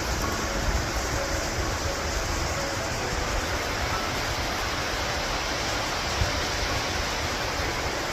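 Rushing water from a waterfall or fast creek, a steady, even rush with a low rumble underneath.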